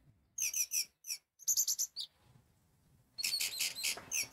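Orange-headed thrush (anis merah) singing: quick phrases of short, sharp, high notes, with a pause of about a second in the middle before a denser run near the end.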